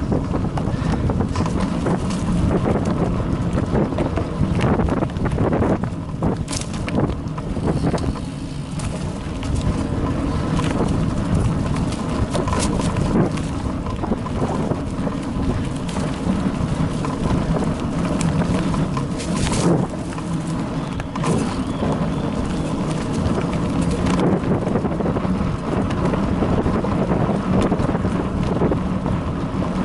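Bicycle ridden over a bumpy dirt forest trail, picked up by an action camera riding along: a constant low rumble of tyres and jolts with frequent rattling knocks and a few harder clattering bumps, and wind buffeting the microphone.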